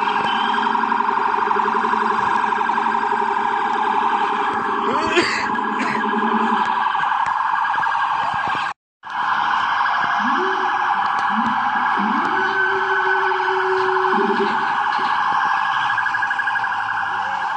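Police car sirens sounding without a break: a fast, high-pitched yelp runs throughout, while a lower siren winds up and holds in two long stretches. The sound cuts out completely for a moment about nine seconds in.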